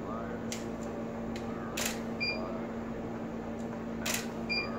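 Camera shutter clicking as studio flash shots are taken: two sharp clicks, about two seconds in and again near four seconds, with fainter clicks between. Each sharp click is followed a moment later by a short high beep, over a steady low hum.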